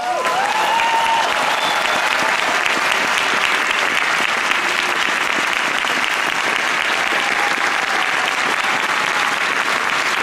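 Large outdoor crowd applauding steadily.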